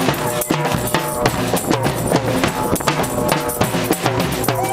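Crowd of noise demonstrators drumming and banging percussion, many quick hits one after another, with wavering pitched tones sounding over the beating.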